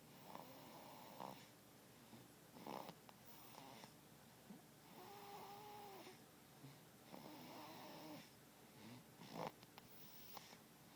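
Faint snoring: slow breaths about every couple of seconds, several of them with a whistling, pitched tone.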